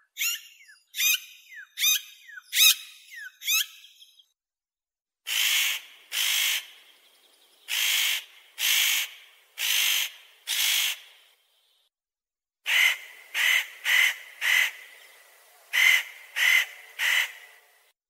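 Spotted nutcracker calling: a quick run of about seven short, thin rising chirps, then two series of harsh, rasping calls, the first about six calls under a second apart, the second about eight calls coming faster.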